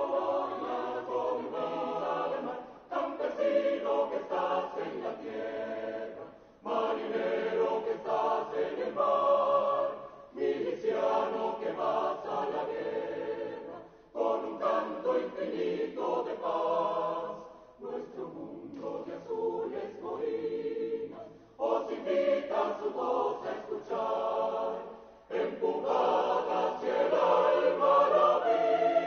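Background music: a choir singing in phrases a few seconds long, with brief breaks between them.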